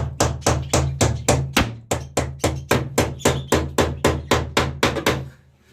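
Hammer driving a stubborn nail: rapid, even blows, about four a second, which stop shortly before the end.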